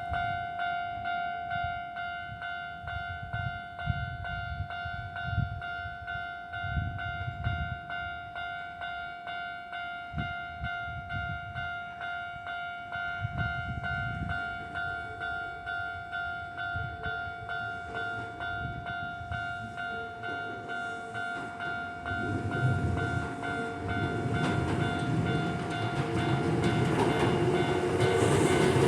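Japanese level-crossing alarm ringing with its two-tone electronic bell in an even, repeating rhythm. From about two-thirds of the way in, a Kintetsu 8600 series electric train is heard approaching, its rumble growing steadily louder toward the end.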